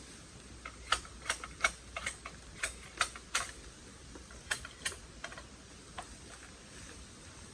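A run of about a dozen sharp, light clicks at irregular intervals, closest together in the first half and sparser after, over a faint steady background.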